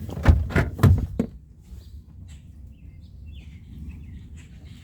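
A few loud knocks and thumps in the first second, then a low steady rumble with faint bird chirps over it.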